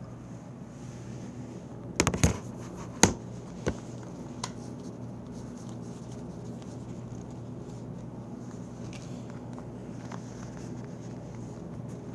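Hands handling a wallet to get out what it holds: a few sharp clicks and knocks, the loudest about three seconds in, then a couple of lighter taps, over a steady low electrical hum.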